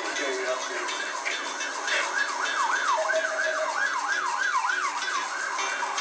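Emergency vehicle siren in a fast yelp, its pitch sweeping up and down two or three times a second, loudest in the middle.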